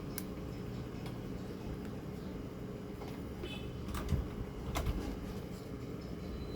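A few light clicks and taps from hand tools working on a circuit board: a sharp one at the start, then two about four and five seconds in. They sit over a steady low hum.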